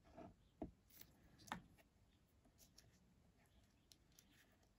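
Near silence with faint handling of card stock and paper: soft rustles and a couple of light taps, about half a second and a second and a half in.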